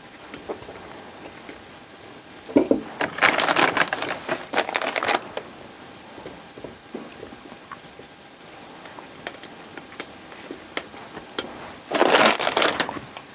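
Crinkling rustle of a plastic bag of dry sphagnum moss and the moss being handled, in two bursts: one about two and a half seconds in lasting a couple of seconds, another near the end, with faint scattered clicks between.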